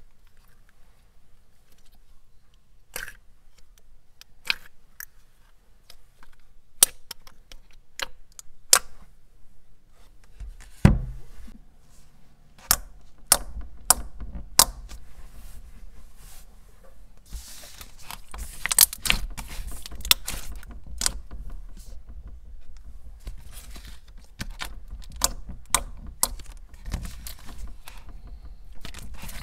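Thick, glossy slime being poked and squished by hand, giving scattered sharp wet clicks and pops, then from about halfway through a denser run of crackling squishes.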